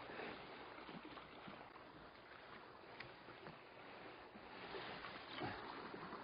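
Faint steady wash of sea water against shore rocks, with a light click about three seconds in.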